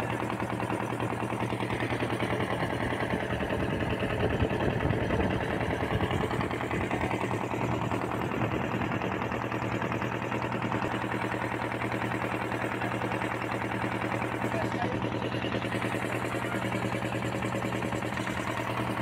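Engine of a wooden river ferry boat running steadily while under way, with a fast, even putter.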